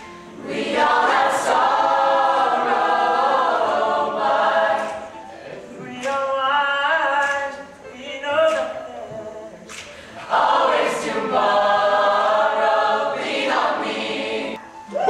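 Student a cappella group of mixed male and female voices singing together in phrases, with no instruments, softer through the middle and fuller again near the end.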